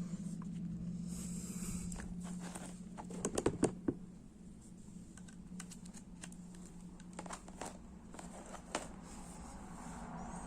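Light plastic clicks and taps of small items being handled, scattered and irregular, with a quick cluster of louder taps about three seconds in. A steady low hum runs underneath.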